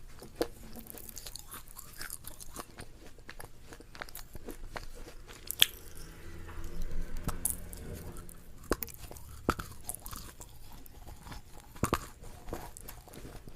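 Close-up chewing of crunchy food: a string of irregular crisp crunches and bites, with the sharpest crunch about halfway through and a softer mushier chewing stretch just after it.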